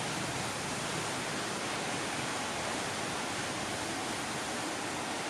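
Steady, even hiss with no other sound in it.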